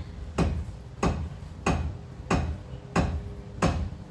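A hammer driving nails into hardwood jarrah framing, in steady even strokes: six blows, about three every two seconds.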